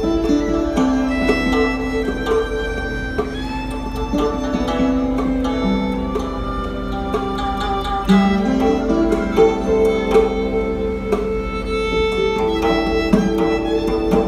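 Live instrumental music from hammered dulcimer, guzheng and violin: the violin holds long bowed notes that step from pitch to pitch, under a steady flow of quick struck and plucked notes from the dulcimer and guzheng.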